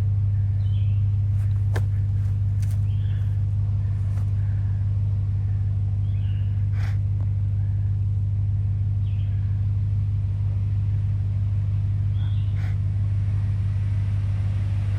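A truck engine idling steadily with a constant low hum.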